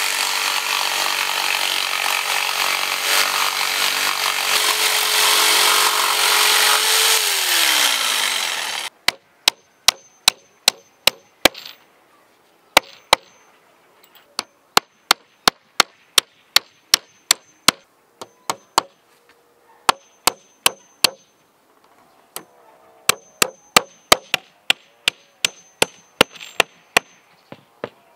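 A power saw cutting wood, running with a steady whine for about nine seconds; its pitch slides down as it shuts off. Then come sharp chopping strikes on wood, about two a second, in runs with short pauses.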